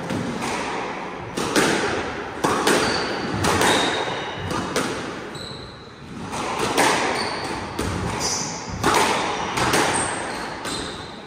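Squash rally: the ball struck by rackets and hitting the court walls, a sharp hit about every second, each ringing briefly in the enclosed court, with short high shoe squeaks on the wooden floor in between.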